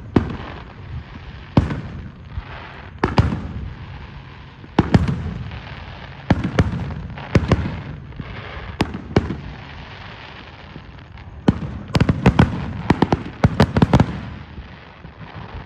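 Aerial fireworks going off: single sharp bangs every second or two with crackling between them, then a rapid string of bangs in a finale-like burst near the end.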